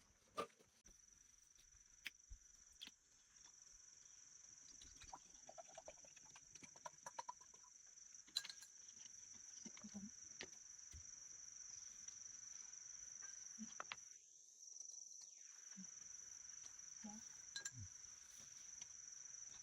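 Faint, steady, high-pitched drone of insects in the garden, with scattered soft clicks and rustles.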